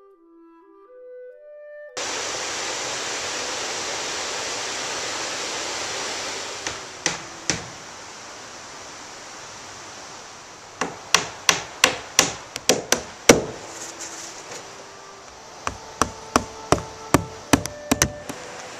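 A claw hammer driving roofing nails into cedar shingles, sharp ringing blows in quick runs: two blows, then about eight in a row, then another run near the end. It is preceded by a brief snatch of flute music and a few seconds of steady rushing hiss.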